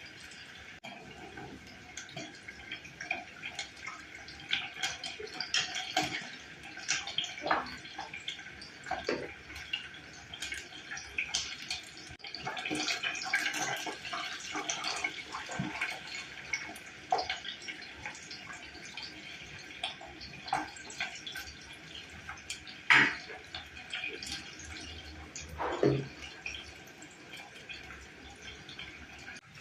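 Water splashing and dripping in a kitchen, with irregular clinks and knocks throughout. Two louder knocks come near the end.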